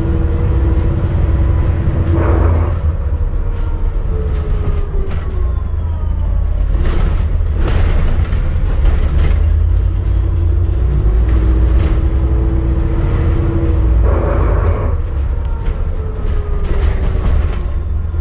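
Inside an ADL Enviro400 MMC hybrid double-decker bus on the move: a steady low rumble with a drive whine that glides down and then up in pitch as the bus slows and speeds up again, and three short bursts of noise.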